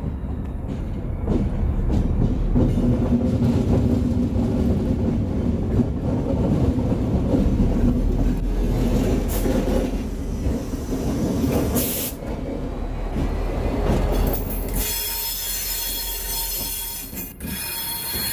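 GP40-2 diesel locomotive running as it rolls slowly past at the head of a freight train. About fifteen seconds in, the engine sound falls away and a high-pitched squeal takes over.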